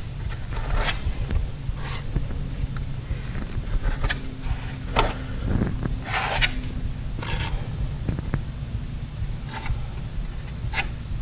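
Scraping strokes as Bondo body filler is spread over a metal door and pushed into a hole, a short stroke every second or so, over a steady low hum.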